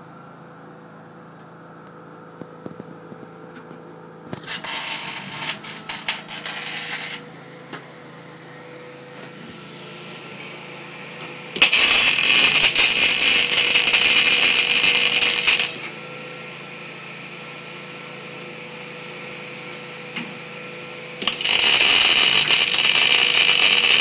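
Electric arc welding on steel bar: three spells of crackling arc. The first, about four seconds in, is short and uneven. The next two are steady runs of about four seconds each, the last still going at the end.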